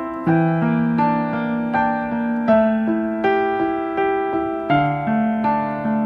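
Background piano music: a slow melody of sustained notes, each struck and left to ring, over lower held notes.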